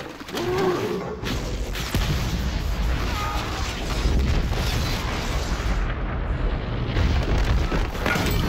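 A huge film-mix explosion as a stone fortress wall is blown apart: a deep boom within the first second, then a long low rumble with crashing debris, under orchestral score.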